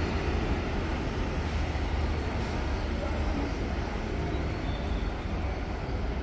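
Brasília Metro electric train running through a station: a steady low rumble that slowly grows quieter.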